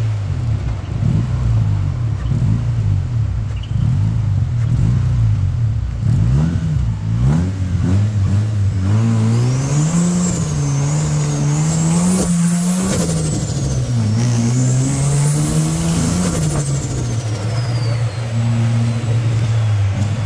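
Rotary-engined car driven under load, its engine revving up and easing off again and again through the gears. From about nine seconds in, a high whine rises and falls along with the revs.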